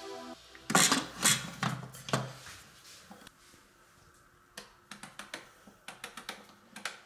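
A few clattering knocks, then a quick run of small clicks, about three or four a second, as the Thermomix TM5 selector dial is turned step by step.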